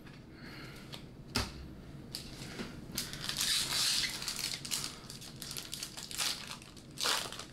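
Foil wrapper of a Pokémon trading card booster pack crinkling and tearing as it is pulled open by hand, loudest a few seconds in. A single sharp knock comes about a second and a half in.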